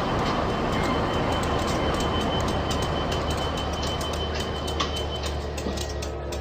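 A train running on the rails: a steady rumbling noise with a low hum and a rapid run of sharp ticks. A thin high whine sounds over it and stops about five seconds in.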